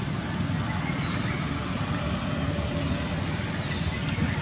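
Steady low outdoor rumble, with a few faint, high, falling squeaks about every two seconds.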